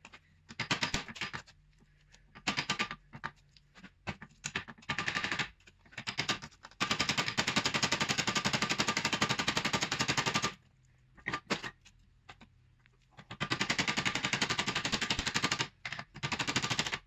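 Quick runs of light hammer taps on a VW T4 inner CV joint, knocking the joint off the driveshaft's splines. Short bursts and single knocks give way to two long runs of rapid strikes, each a few seconds long, with pauses between.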